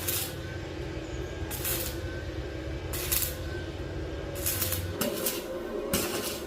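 Short hissing strokes repeating about every second and a half, over a steady low hum that stops about five seconds in.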